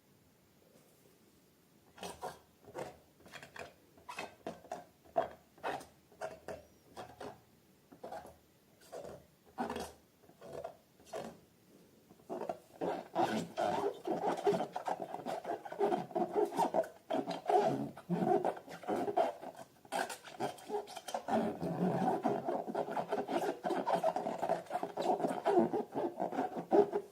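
Homemade slime squeezed and kneaded by hand, squishing and crackling. It starts as separate squishes about two a second, then about halfway through becomes a dense, continuous squelching.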